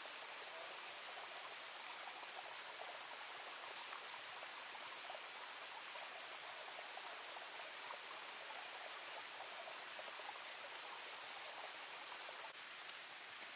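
Steady, even hiss of water, with faint scattered ticks.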